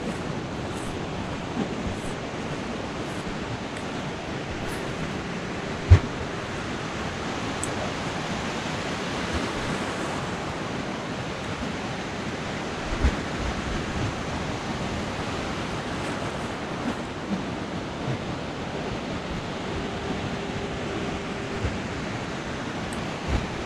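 Steady rush of ocean surf washing in, with a few faint clicks and one sharp knock about six seconds in.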